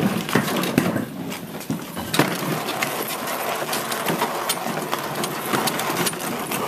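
A Black & Decker battery lawn mower, switched off, being pushed along so that its plastic wheels and deck rattle over concrete and brick pavers, a steady clattering full of small clicks and knocks.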